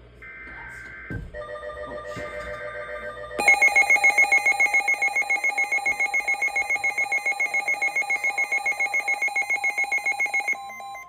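Emergency Alert System broadcast tones: a short screechy burst of digital SAME data tones, then a pulsing electronic alert that jumps much louder about three and a half seconds in. It beeps rapidly, several times a second, for about seven seconds, then cuts off suddenly.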